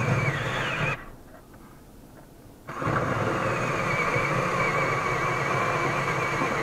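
Cordless drill driving a hole saw into the metal floor of a van. It runs for about a second, stops, then starts again just under three seconds in and runs steadily under load with a constant whine.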